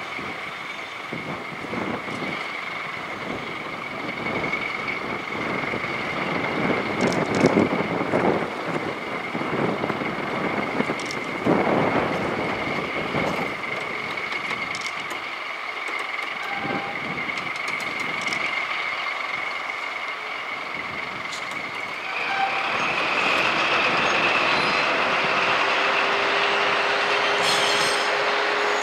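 A freight train of two red diesel locomotives hauling tank wagons crawls past at walking pace, a steady high whine over engine rumble with occasional knocks. About two-thirds of the way through it grows louder and the whine rises slightly as the locomotives draw level. The crawl is a slow order over track in poor condition, to keep from derailing.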